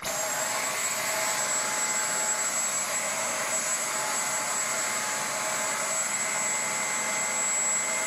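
Dyson V10 cordless stick vacuum motor running, a steady rush of air with a high thin whine over it, starting abruptly. It is running on its own: the fault in which it switches itself on in some positions and cannot be switched off.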